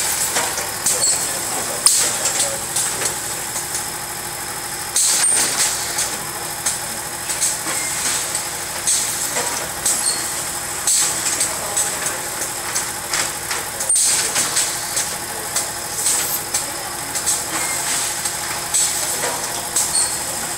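P510T automatic weighing and bagging machine running while it weighs cat litter: a steady mechanical hum with short hissing bursts about once a second and a few sharp clicks.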